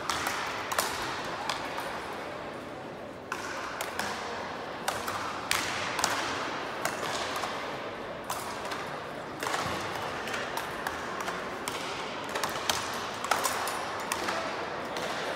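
Speedball rally: solid rackets strike the ball tethered to the central pole in a string of sharp pings, about one to two a second, each echoing in a large sports hall.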